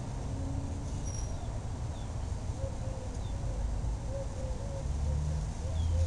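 S.M.C. "The Laguna" ceiling fan (1978, first generation) running at speed with a steady low motor hum, a little louder near the end. A few faint, short, high chirps sound over it.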